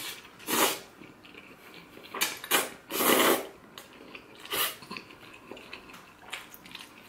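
A person slurping spaghetti noodles off a fork: several short sucking slurps, the longest about three seconds in, with quieter chewing between.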